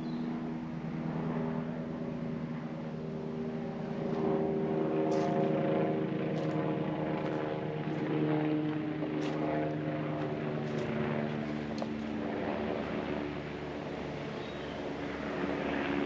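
A steady engine drone with an even pitch, swelling a little in the middle, with a few short sharp clicks over it.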